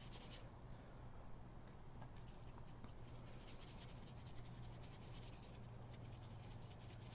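Faint scratchy strokes of a paintbrush spreading acrylic paint on paper, coming in a few short runs of quick back-and-forth strokes, over a low steady room hum.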